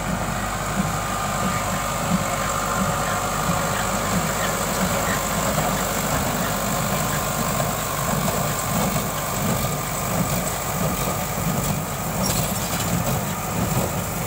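Sonalika tractor's diesel engine running steadily while driving a square baler.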